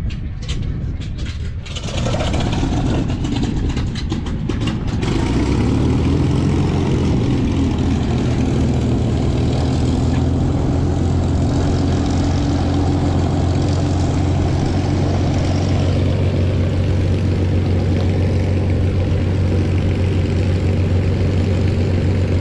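A heavy engine comes up about two seconds in and settles by about five seconds into a steady, loud, low drone.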